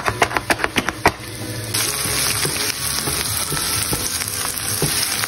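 A quick run of sharp clicks as a knife works at the plastic tray of minced meat, then, about two seconds in, diced onion sizzling steadily in hot oil in a frying pan as a wooden spatula stirs it.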